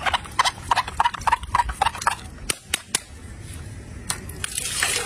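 A quick run of sharp clicks and taps, about five a second for two seconds, then a few single clicks, with a steady rushing noise coming in near the end.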